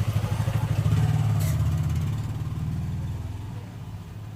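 A steady low hum that swells about a second in and then slowly fades, with one short click about one and a half seconds in.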